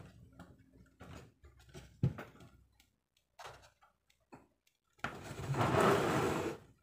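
Plastic clicks and knocks as an action camera and its plastic mount are handled and pressed against a bicycle helmet. About five seconds in, a louder hiss-like noise starts and lasts nearly two seconds.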